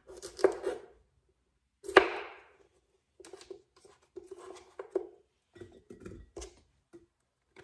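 Kitchen knife cutting cucumbers on a cutting board: one sharp chop about two seconds in, then a run of lighter, irregular knocks and taps.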